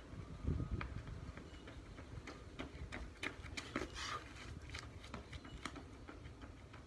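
Running footsteps on a concrete driveway as short scattered slaps and clicks, coming closer and then going away. The loudest moment is a short burst about four seconds in, as the runner turns at the near end of a shuttle run.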